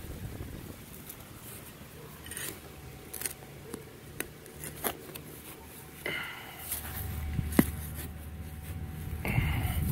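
Hand scraping and pulling loose soil out of a small dug hole, with scattered small clicks and short scratchy rasps, and one sharper click about two-thirds of the way through.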